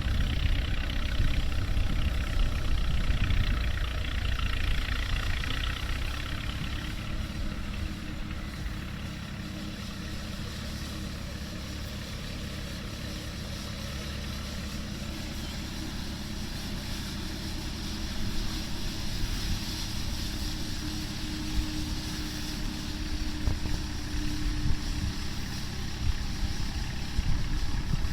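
Standard Fordson tractor engine running, louder for the first few seconds, easing off through the middle, then building again toward the end.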